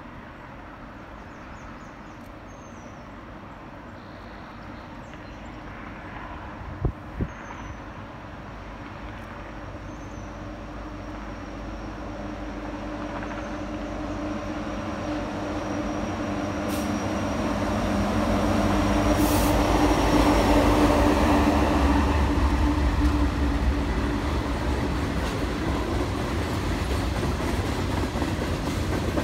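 A diesel-hauled freight train approaches and passes: the locomotives, led by Norfolk Southern's Reading heritage unit, an EMD SD70ACe, grow steadily louder and are loudest about two-thirds of the way in, then the freight cars roll by. Two short knocks sound about seven seconds in.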